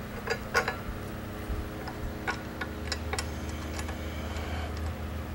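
Irregular light metallic clicks and taps of a stainless steel bolt and locking nut being fitted by hand to the kick pedal mount of a Maytag 72 engine, over a steady low hum.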